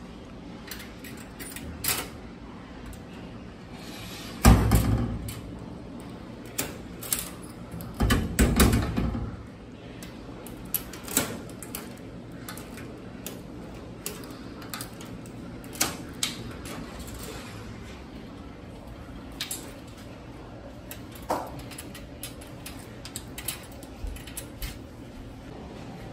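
Coin-operated metal locker being locked: scattered clicks and knocks from the coin, the lock and the key, with a heavier knock about four and a half seconds in and a longer, rattling one about eight seconds in as the door is shut. A steady low hum lies beneath.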